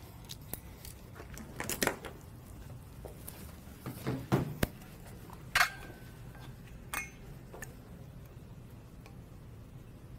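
Scattered small clicks, taps and knocks of pencils and papers being handled at desks in a quiet room, with a steady low hum underneath; one clink about five and a half seconds in rings on briefly.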